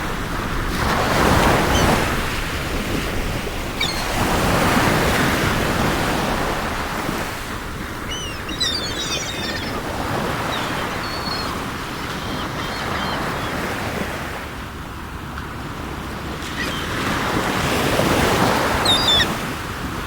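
Sea waves breaking and washing ashore in swells every few seconds, with seagulls calling several times around the middle and again near the end.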